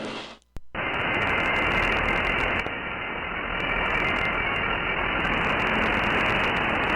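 CB radio receiver hiss: a loud burst of band static, cut off in the treble like a receive filter, starting just under a second in and stopping suddenly near the end, as a transmission opens the channel with no clear voice on it.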